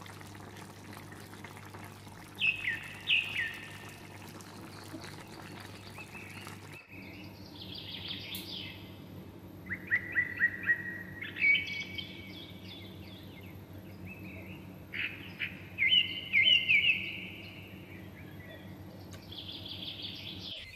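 Birds chirping: short runs of quick falling whistled notes every few seconds, over a steady low hum.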